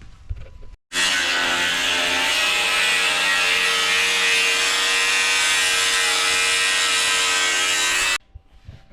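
CNC plasma cutter torch cutting steel plate: a loud, steady hiss and buzz that starts suddenly about a second in and stops suddenly just before the end.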